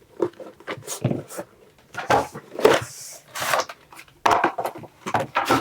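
Plastic shrink wrap being torn open and pulled off a cardboard Elite Trainer Box by hand: irregular crinkling and tearing with clicks and taps of the box being handled.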